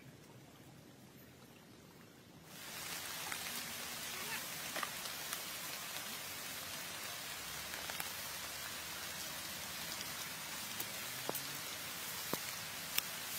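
Rain falling steadily on forest foliage, an even hiss that comes in suddenly about two and a half seconds in, with scattered sharp ticks through it.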